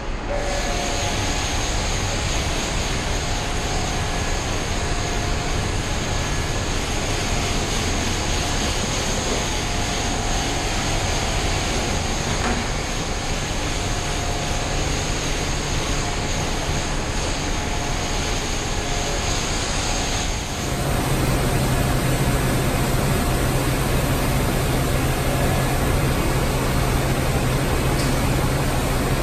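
Pressure-washer lance spraying hot water against the side panels of a bus: a steady hissing roar of spray with the washer running. About two-thirds of the way through, the sound gets louder and a steady low hum comes in.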